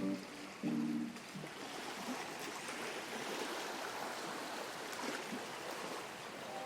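Calm sea water washing and lapping against a harbour pier: a steady hiss of small waves. Two plucked notes of lofi music sound in the first second or so.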